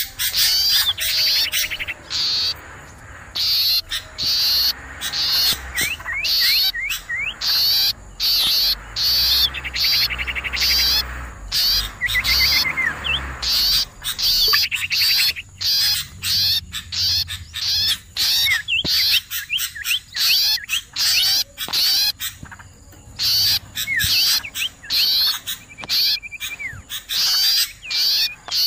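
Bird-trapping lure recording of noisy small songbirds: a dense run of high, rapid chirping calls repeated about twice a second, with a few quick rising whistled notes mixed in.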